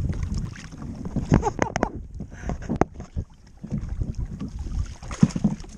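Wind buffeting the microphone in gusts, with scattered short knocks and clicks.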